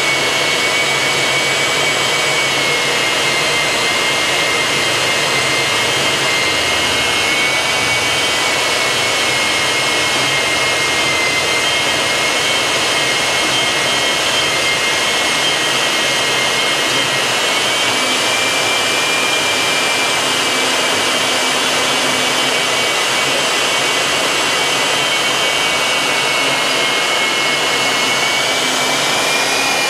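Harbor Freight portable band saw cutting through steel: a steady motor whine over the rasp of the blade, its pitch sagging slightly under load and rising near the end.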